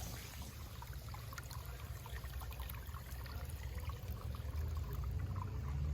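Faint running water of a stream, with a low rumble on the phone's microphone that grows a little louder near the end.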